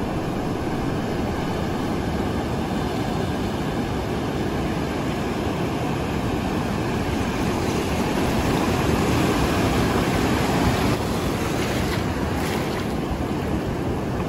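Steady rushing noise with no clear tones, swelling louder about eight seconds in and easing back about eleven seconds in.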